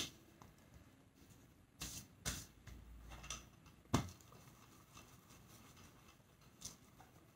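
Faint knocks and rustles of an iron and a damp pressing cloth being handled while a diamond painting canvas is ironed: about five short, sharp knocks spread out, with quiet shuffling between them.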